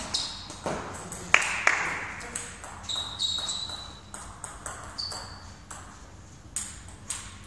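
Table tennis ball clicking sharply off bats and the table in a rally, the loudest hit about a second and a half in, followed by sparser ball bounces and a few high ringing pings.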